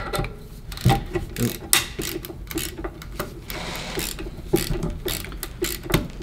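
Two ratcheting screwdrivers, a Channellock and the identical MegaPro, driving screws into a wooden board: the ratchets tick quickly and unevenly on each back-stroke, with sharper clicks here and there.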